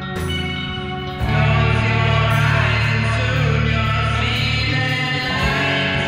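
Band music with guitars, bass and drums, and a singing voice. About a second in, it steps up into a louder, fuller passage with heavy bass.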